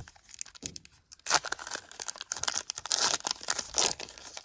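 Wrapper of a baseball card pack being torn open and crinkled by hand, rustling in irregular bursts, the loudest a little over a second in.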